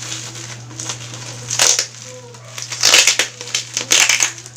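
Plastic parcel packaging and bubble wrap crinkling and crackling in three strong bursts as hands struggle to pull open tight packing tape.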